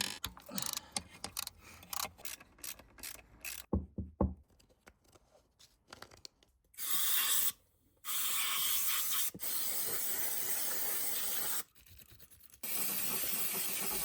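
A socket ratchet clicking in quick short runs as bolts are worked loose. Then three long bursts of steady hissing noise, each starting and stopping sharply, from about halfway through.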